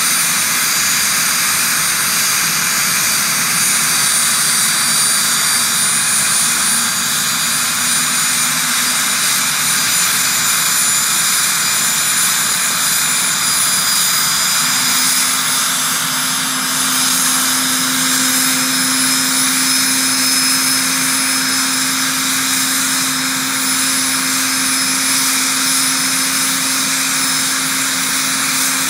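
Turbomeca Astazou XIVH turboshaft of an SA342J Gazelle helicopter running on the ground after a compressor wash, with the main rotor turning slowly: a steady high turbine whine over a rushing noise. A lower hum comes in about halfway through.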